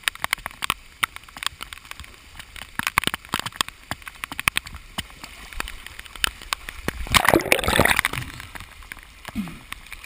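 Fast-flowing floodwater splashing and sloshing around a camera riding at the water surface, with many sharp splashes. A louder rush of water about seven seconds in lasts about a second.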